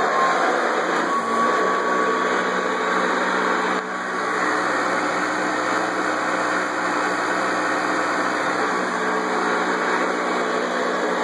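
1985 Hoover Custom Convertible upright vacuum cleaner's motor running steadily and smoothly, a faint whine over its rush of air. The loudness dips briefly about four seconds in.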